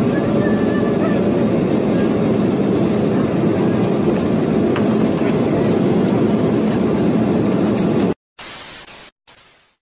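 Steady rumble of a moving vehicle heard from inside, which cuts off abruptly about eight seconds in; two short bursts of hiss follow.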